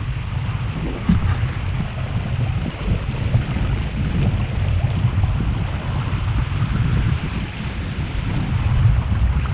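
Wind noise on the microphone over the steady rush of water along the hull of a sailing kayak moving under sail.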